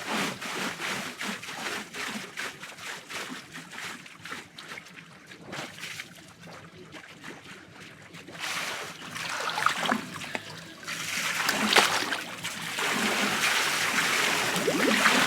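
Hot tub water splashing and trickling, with many small splashes. It quiets down a few seconds in, then grows louder and busier again from just past halfway.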